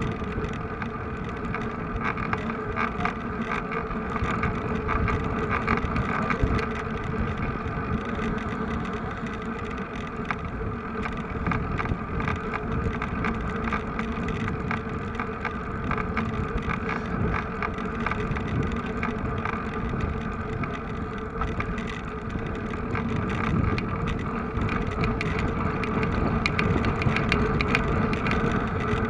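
A vehicle engine running at a steady speed, a constant drone over a low rumble.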